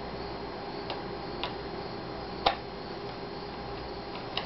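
Small screwdriver clicking on the cover screws of an Asus X54C laptop's plastic screen bezel as they are driven back in: a handful of sharp ticks, the loudest about two and a half seconds in, over steady background noise.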